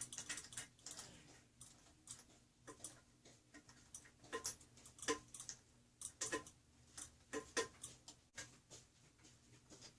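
Faint, irregular metal clicks and taps, some in quick runs, of a small adjustable wrench working the nut off a toilet's floor bolt.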